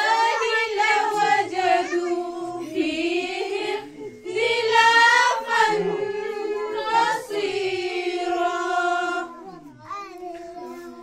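A child's voice singing a slow melodic recitation in long held phrases, with short breaks about four seconds in and near the end.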